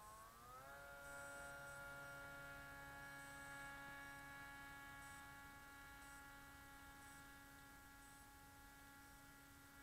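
Faint whine of a small electric motor with several overtones, rising in pitch about half a second in and then holding steady, over a low hum.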